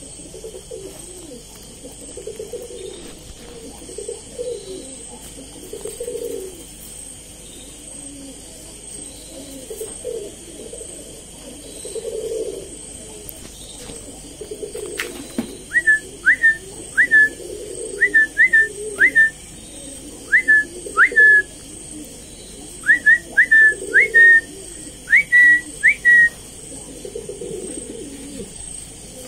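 Pigeon cooing again and again in low phrases. About halfway through, some twenty short, sharp high chirps, each a quick upward flick, come in clusters for about ten seconds and are the loudest sound.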